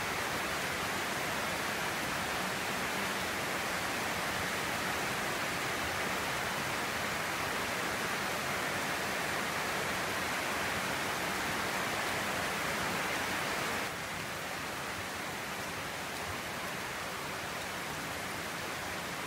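Steady rain falling on a roof, an even hiss that drops slightly in level about two-thirds of the way through.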